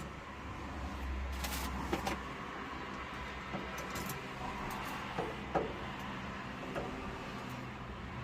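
Scattered light clicks and knocks of small metal and plastic parts and hand tools being handled while a boiler valve is taken apart for a diaphragm change, over a steady low hum.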